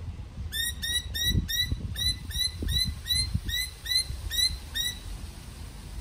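A bird calling a rapid series of about fifteen short, identical chirps, about three a second, which stop about a second before the end.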